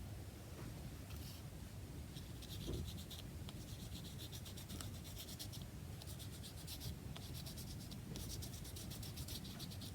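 Brush scrubbing gesso onto a card tag: faint, rapid scratchy strokes in three spells of a second or two each.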